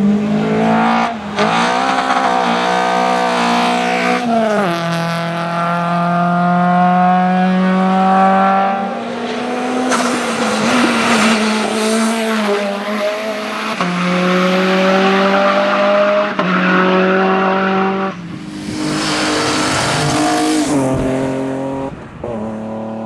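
A racing car's engine at high revs on a hill-climb course: it climbs in pitch, drops and climbs again several times as gears change and the throttle is lifted through the bends. Near the end a rushing hiss rises over the engine.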